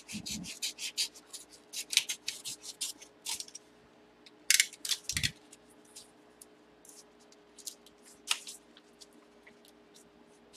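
Scissors snipping through a paper manila envelope in a quick run of short cuts, followed by paper rustling and crinkling as the envelope is pulled open. There is a louder burst of paper handling with a dull knock about four and a half seconds in.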